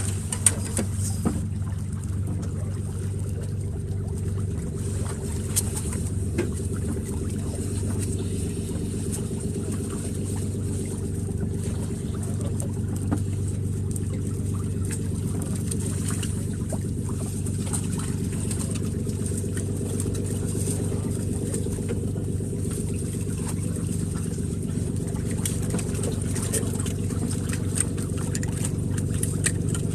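Fishing boat's engine running steadily with a low, even hum; it comes up sharply right at the start.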